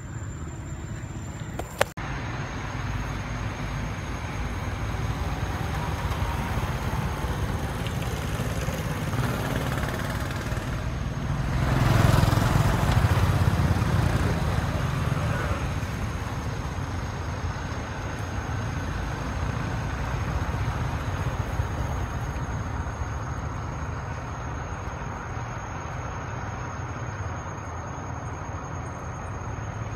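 Road traffic noise: a steady low rumble, with a vehicle passing that swells and fades about twelve seconds in. A sharp click about two seconds in.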